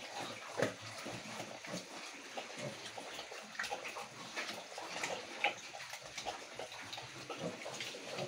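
Several young piglets grunting and shuffling about, with a busy patter of short clicks and scrapes from trotters and snouts on the pen floor.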